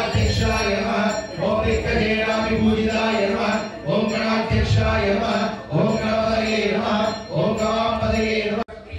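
Devotional chanting to Ayyappa: voices sing a chant in repeated short phrases of a second or two each, then cut off abruptly near the end.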